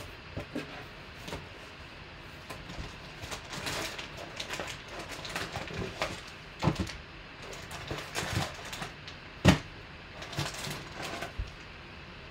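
A cardboard box flap opened and foil-wrapped trading card packs crinkling and rustling as they are lifted out and set down in stacks, with scattered light knocks and one sharper knock about nine and a half seconds in.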